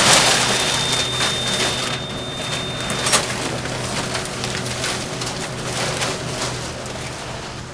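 Sheets of newspaper rustling and crinkling as a pile falls and shifts, a dense crackle that slowly fades, with a sharp crack just after three seconds. A thin steady high tone runs under it for the first three seconds and then stops.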